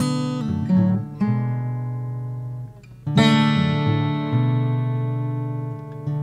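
Instrumental theme music of plucked-string chords. A chord is struck at the start and another about a second in, then a full chord about three seconds in is left to ring and fade.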